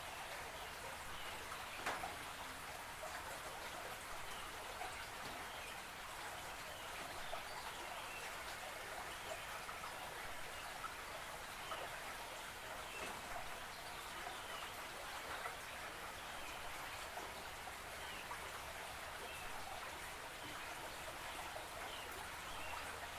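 Creek water trickling and babbling steadily, with many small drip-like ticks and faint scattered bird calls.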